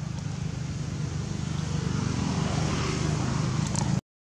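Steady low engine drone, cutting off abruptly near the end.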